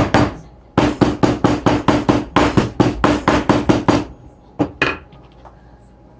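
Hammer tapping in leatherwork: a run of about a dozen quick, even strikes, about four a second, that stops about four seconds in, followed by two more taps.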